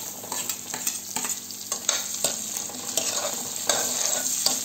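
Chopped onions sizzling in hot oil and butter in a kadhai, with a steel ladle clicking and scraping against the pan as they are stirred.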